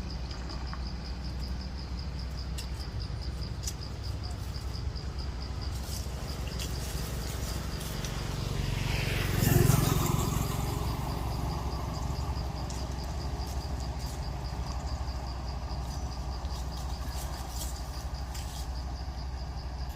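Outdoor ambience: a steady low rumble under an insect chirping in a rapid, even pulse. About halfway through, a motor vehicle passes, swelling and then fading with a falling pitch.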